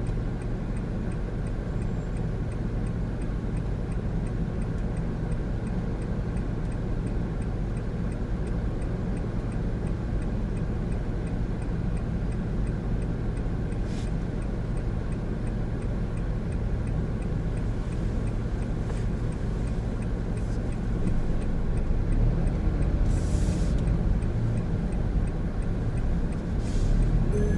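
Engine and road noise of a Honda N-BOX Custom's 660 cc turbo three-cylinder, heard inside the cabin while driving: a steady low hum that gets louder about three-quarters of the way through as the car pulls harder.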